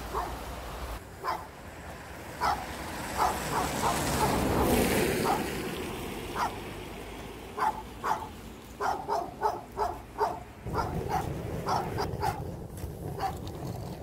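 Dog barking repeatedly in short, sharp barks, the barks coming closer together in the second half. About four to five seconds in, a brief rushing swell of noise rises and fades under the barking.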